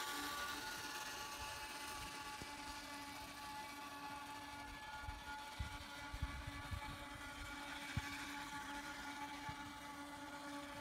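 Steady whine of a toy RC boat's Speed 400 brushed electric motor driving its jet drive, with a few short low thumps around the middle.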